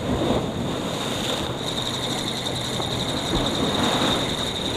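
Sea waves breaking and washing over a rocky shore, with wind on the microphone. A thin, steady high whine runs through it, stronger from about a second and a half in.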